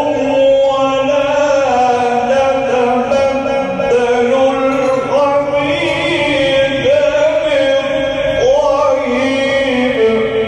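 Quran recitation: a man chanting in a slow, melodic style, holding long notes that glide up and down, with no break.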